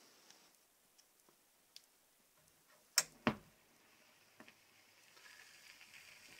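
Two sharp clicks about three seconds in as the turntable is started and the 45 rpm single begins to spin. Otherwise very quiet, with a few faint ticks and a low hiss near the end.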